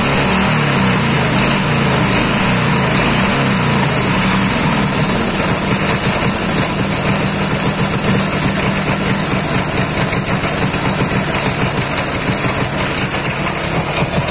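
Dnepr MT-10-36 motorcycle's flat-twin engine running steadily. It was rebuilt with a new connecting rod and big-end bearings after a worn, blued bearing made it knock.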